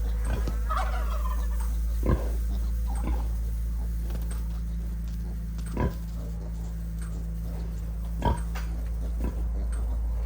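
Sharp snaps of an electric fence charger every few seconds, three in all, over a steady low hum. Brief animal calls sound about a second in.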